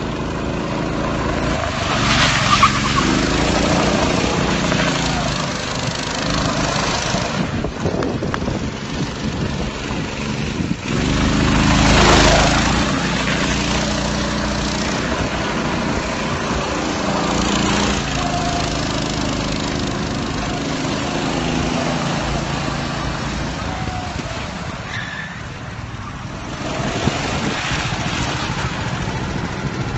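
Small petrol engine of a motorized drift trike revving up and down as the trike slides around on asphalt. A louder rushing noise swells a few seconds in, again near the middle and again near the end.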